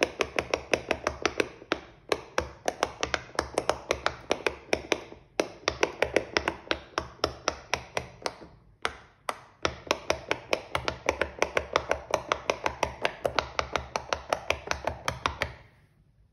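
Silicone bubbles of a large pop-it fidget toy being pressed one after another with a fingertip, a quick run of popping clicks, several a second, with a few short pauses, stopping shortly before the end.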